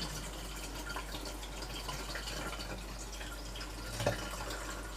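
Water pouring from a jug into a portable countertop dishwasher's on-board water tank: a steady trickle and splash with small drips, and a short knock about four seconds in.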